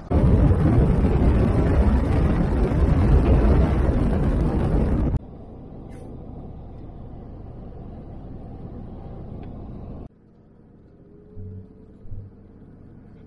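A vehicle driving on a highway: loud, steady wind and road rush for about five seconds. It then cuts suddenly to a much quieter rush of tyres and road heard inside the cab. Shortly after ten seconds it cuts again to a lower, quieter hum with a few soft thumps.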